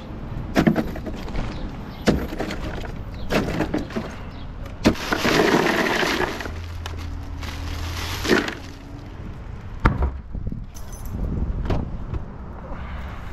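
Plastic water bottles knocking into a hard plastic cooler, then a bag of ice emptied into it about five seconds in, the cubes clattering against the plastic. A few more sharp knocks follow.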